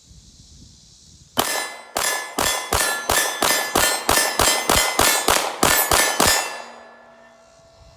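Rapid string of about fifteen suppressed 9mm shots from a Palmetto State Armory Dagger pistol, about three a second, with a steel target ringing as the bullets hit it. The steel keeps ringing briefly after the last shot.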